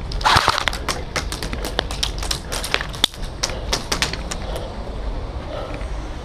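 Airsoft guns firing a rapid, irregular string of sharp clicking shots for about four seconds, then stopping.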